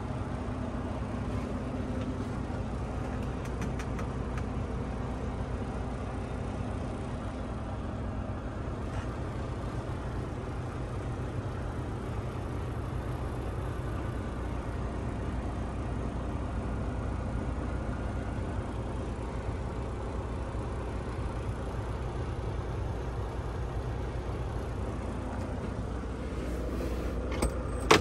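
Volvo D13TC diesel engine of a 2021 Volvo VNL860 semi truck idling steadily, with a few clicks near the end.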